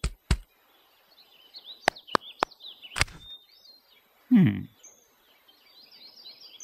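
Birds chirping over a forest scene, with a few sharp clicks in the first three seconds and one loud sound effect that drops in pitch about four and a half seconds in.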